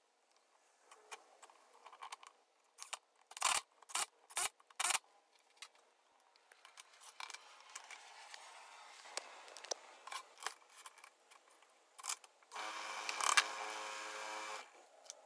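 Power drill driving the four screws of a lathe faceplate into a wet log in four short bursts, with light handling clicks. Near the end the wood lathe's motor runs for about two seconds with a steady hum as the log spins, then cuts off.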